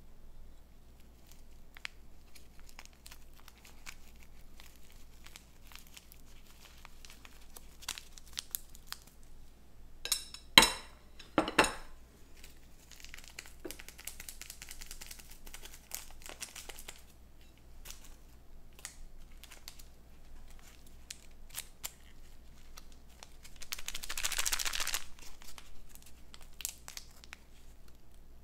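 Packaging crinkling and tearing in handling, with two sharp knocks about a second apart near the middle and a louder burst of crinkling near the end.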